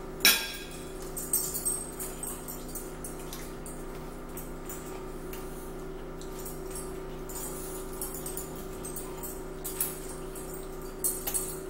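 Scattered clinks and light taps of plates and cutlery at a breakfast table, with one sharp clink about a quarter second in, over a steady low hum.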